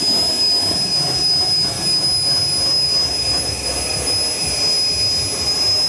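Jetjoe 1400 RC model jet turbine engine running steadily at constant speed, a high steady whine over a rushing roar.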